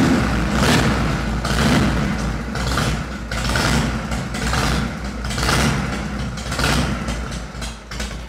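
Harley-Davidson Shovelhead carbureted V-twin engine running, swelling in loudness about once a second as the throttle is blipped. It is being run just after an oil change to get the new oil circulating.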